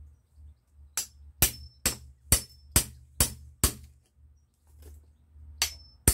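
Hatchet hammering a metal blade driven into a cherry plum branch to split out a billet, with sharp metal-on-wood strikes, some with a brief metallic ring. Seven strikes come about two a second from about a second in, then a pause, then two more near the end.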